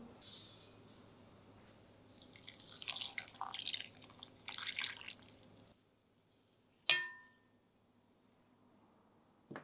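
Water poured from a jug into a ceramic pot of sugared apricot halves, splashing and gurgling for a few seconds. Near the end comes a single sharp clink with a brief ring.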